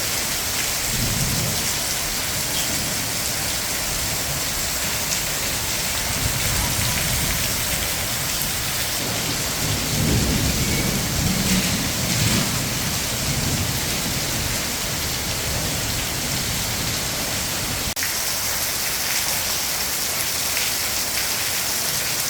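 A steady rushing hiss of noise, like heavy rain, with low rumbles swelling up a few times, most strongly about ten to thirteen seconds in.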